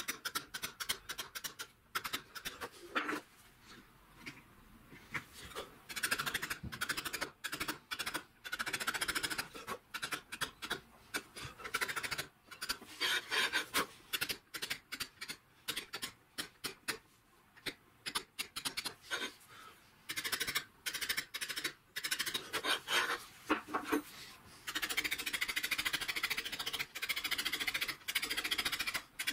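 Quick light taps of a mallet on a steel letter-carving chisel, cutting letters into Welsh slate, with the scratch of chipped stone. The taps come in fast runs with short pauses and are densest near the end.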